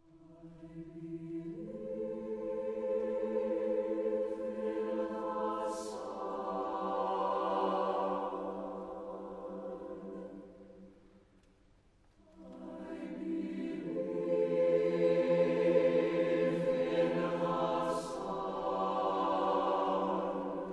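Mixed choir singing slow, sustained chords in two long phrases, with a short pause about eleven seconds in.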